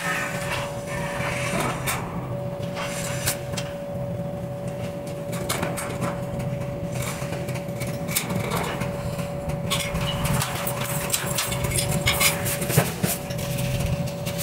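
Scattered clicks, taps and knocks of hands working a ceiling light fixture and shifting on an aluminium stepladder, over a steady hum with a faint constant tone.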